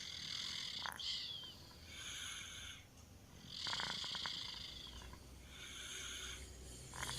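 A two-year-old child snoring softly in deep sleep: a hissy breath about every one and a half to two seconds.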